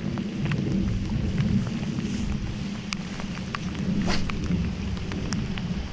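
Rain falling, with scattered sharp ticks of drops striking close to the microphone over a steady low rumble.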